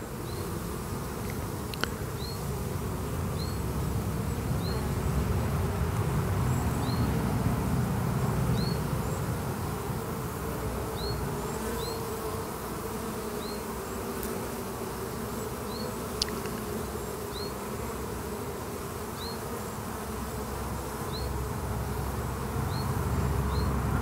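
Honeybees buzzing in and out of the hive entrance, a steady humming drone from many wings at once, the sound of a busy, healthy colony in full flight. A short high chirp repeats about once a second behind it.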